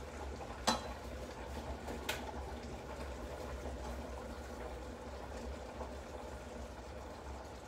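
Tomato and wine sauce with cuttlefish pieces simmering in a pan, a steady bubbling crackle, under a low steady hum. Two sharp clicks come about a second in and about two seconds in as tongs handle the cuttlefish.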